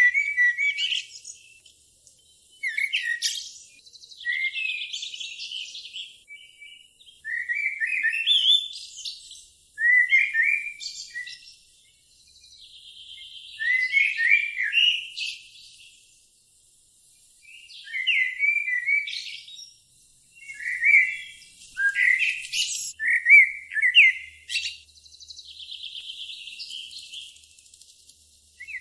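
A songbird singing repeated phrases every two to four seconds. Each phrase is a few sharp, clear notes followed by a higher buzzy trill.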